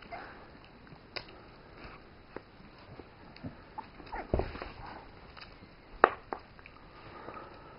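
Puppies and an adult dog scuffling and nosing about on a rug, with scattered small knocks and clicks, a soft thump about four seconds in and a sharp click about six seconds in.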